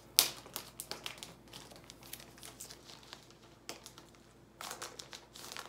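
Plastic comic bag crinkling and rustling as a comic book is slid out of it, with a sharp crackle just after the start and a longer rustle near the end.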